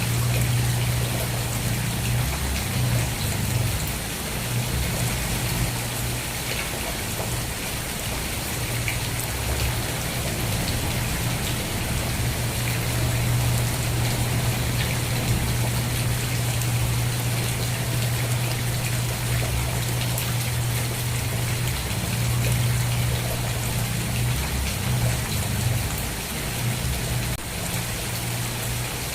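Steady rain falling and pattering on a surface, with many small drop ticks over a constant wash, and a low rumble underneath that swells and dips.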